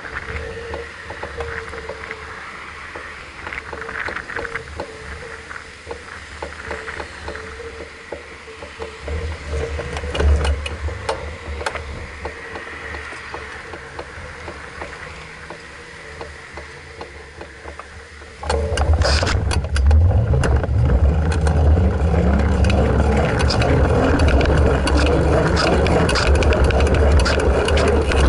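Mountain bike being ridden over paving, heard through a camera strapped to its frame: tyre rumble with the frame and chain rattling and clicking. About eighteen seconds in it turns much louder, a heavy low rumble with dense clattering.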